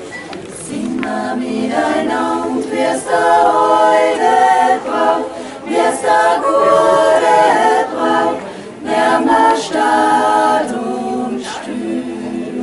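Women's vocal group singing a song in several-part harmony, held notes in phrases with brief breaths between them, accompanied by two acoustic guitars.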